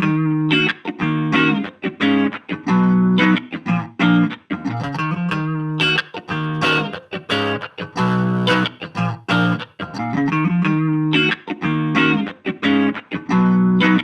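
Electric guitar played through a battery-powered mini guitar amplifier, picking a riff of single notes and short chords that comes round again and again.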